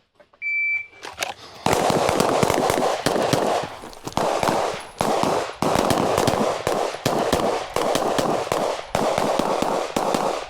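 A shot timer beeps once, then pistols fire in rapid, near-continuous strings for about nine seconds, with a few short pauses, during a live-fire shooting drill.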